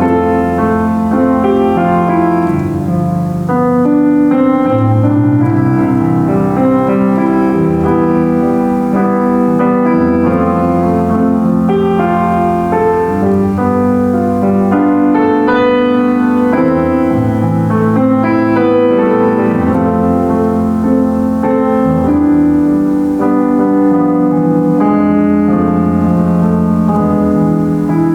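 Solo piano playing a slow, chordal hymn-style piece, with sustained chords over a steady bass line.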